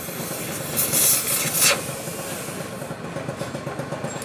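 Gas torch burning steadily against an aluminium alloy wheel rim, heating the bent lip before it is straightened. A louder rasping hiss lasts about a second, starting about a second in.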